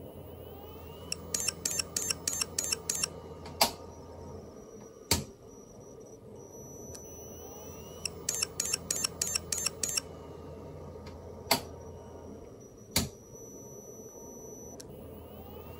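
Failed Maxtor Atlas 10K V 10,000 rpm SCSI hard drive repeating a failed start: a faint rising whine, a quick run of about eight head clicks, then two louder clicks, after which the low motor hum cuts out for a moment. The cycle runs twice, the repeated clicking of a dead drive.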